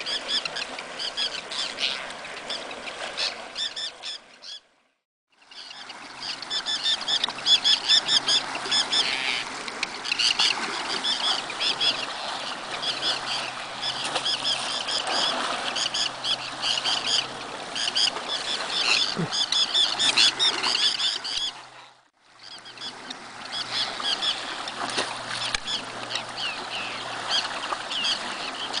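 A flock of Arctic terns calling almost without pause, many short, sharp calls overlapping. The sound cuts out briefly twice.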